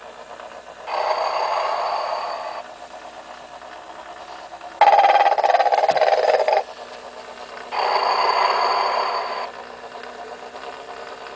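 Snoring sound loop from a 1994 Telco Motionette animated sleeping Mrs Santa Claus figure: softer breaths with a thin high whistle alternate with a louder rasping snore, repeating every few seconds.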